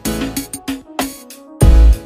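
Background music with a steady beat: heavy bass-drum hits and short pitched notes.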